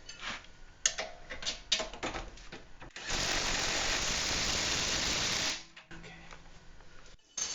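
A power tool runs steadily for about two and a half seconds in the middle and stops sharply, with clicks and knocks of tools and parts being handled before it and once more near the end.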